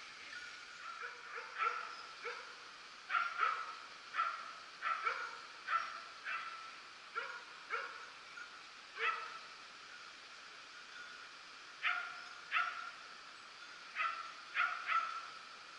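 Hunting dogs giving tongue: a run of short barks repeated irregularly, with a pause of a couple of seconds just past the middle. This is the pack baying again on the wild boar's trail.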